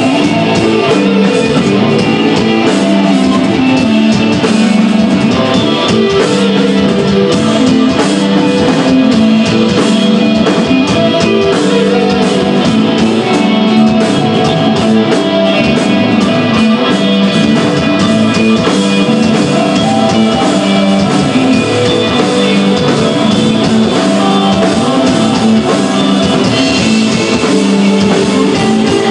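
Rock band playing live and loud: electric guitar over bass and a drum kit with steady cymbal hits.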